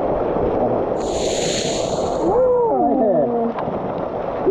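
Waterfall pouring down close by: a loud, steady rush of falling water, with a brief high hiss of spray about a second in. A voice calls out briefly partway through.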